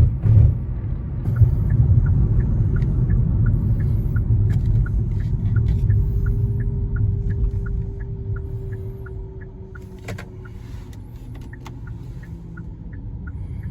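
Car driving, heard from inside the cabin: a low engine and road rumble that is louder for the first several seconds, then eases, with a steady light ticking of about three ticks a second, like a turn signal.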